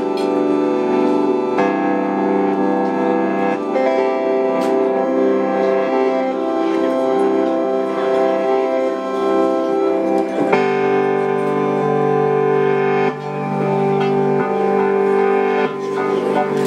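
Live keyboard music: sustained chords are held and changed every few seconds, with a fuller change about ten seconds in.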